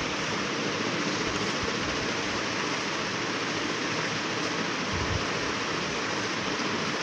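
A steady rushing hiss that runs evenly without pauses or changes in pitch.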